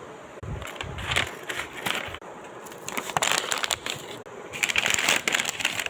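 Cardboard box being cut and torn open: irregular scraping, tearing and rustling of cardboard and packaging, growing louder and denser about three-quarters of the way through.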